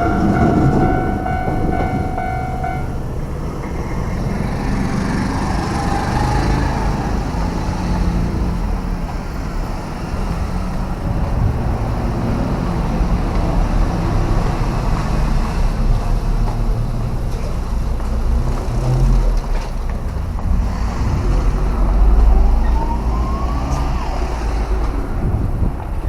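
Steady low rumble of motor vehicles and street traffic. A steady tone fades out in the first few seconds, and a rising whine comes near the end.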